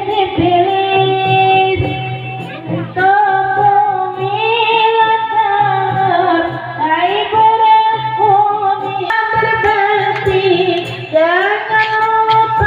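A woman singing long, held and ornamented notes of a slow, sentimental Indonesian song, over a steady instrumental accompaniment.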